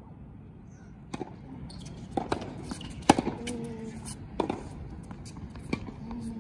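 Tennis ball being hit by rackets and bouncing on a hard court during a rally: a series of sharp pops and thuds, the loudest about three seconds in.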